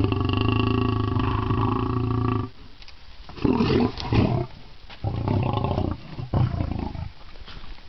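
Lions growling over their food at feeding time. One long, low growl lasts about two and a half seconds. It is followed by shorter growls, the loudest and roughest about three and a half seconds in.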